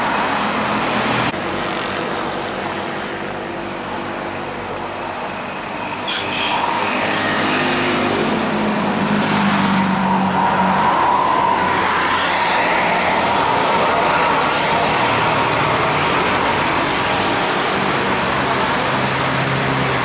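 Road traffic with large tour buses passing, engines running, and steady multi-note bus air-horn tones sounding at times, most clearly near the start and around ten seconds in. The sound changes abruptly twice as the shots cut.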